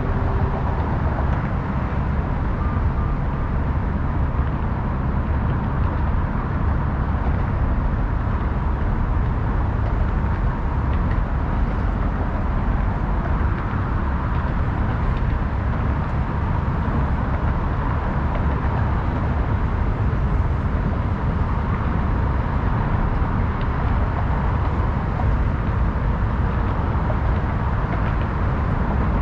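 Steady, unbroken urban road-traffic noise, dense and low-pitched, with no single vehicle standing out.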